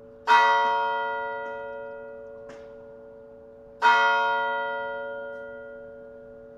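A single church bell tolling slowly: two strikes about three and a half seconds apart. Each strike rings on with a long, fading hum.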